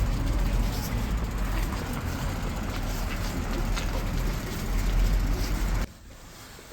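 Car driving: a steady low rumble of engine and road noise that cuts off abruptly about six seconds in.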